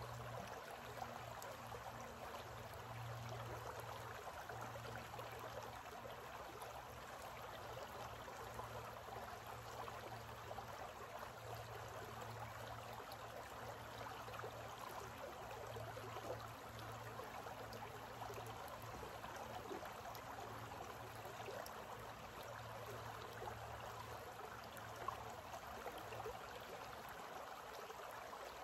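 Shallow creek running over rocks: a faint, steady rush of water.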